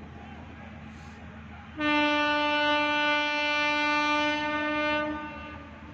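Train horn sounding one long steady blast of about three seconds, starting about two seconds in and fading away, over a low steady rumble.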